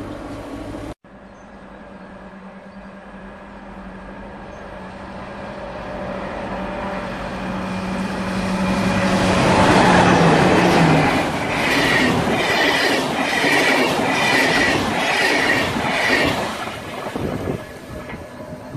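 A DB class 218 diesel-hydraulic locomotive hauling a EuroCity train passes close by. Its steady engine note grows louder on the approach and drops in pitch as it goes past. The coaches then run by with a rhythmic clatter from their wheels, about one and a half beats a second, before the noise fades away down the line.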